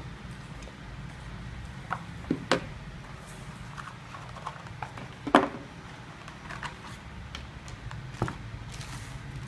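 Handling noise: a few sharp knocks and clicks as small plastic clipper parts and a molded pulp packing tray are picked up and set down on a wooden table, with light rustling in between. The loudest knock comes about five seconds in.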